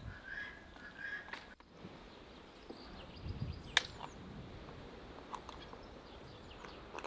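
Small birds chirping, with a repeated high trill over the first second and a half that breaks off abruptly. A single sharp click a little past the middle.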